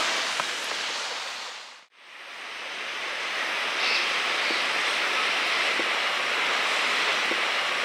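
Steady outdoor rushing noise that fades out to a moment of silence about two seconds in, then fades back up and holds steady.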